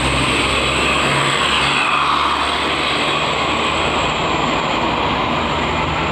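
A tour bus driving past on the road: engine running under steady tyre and traffic noise, which grows brighter about two seconds in as the bus passes closest.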